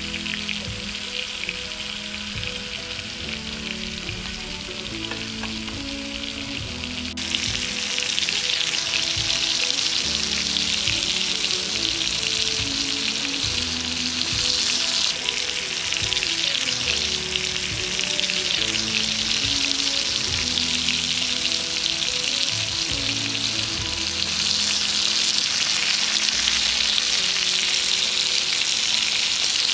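Shallow oil sizzling and crackling steadily around masala-coated fish frying on a flat dosa griddle (tawa), getting louder about seven seconds in.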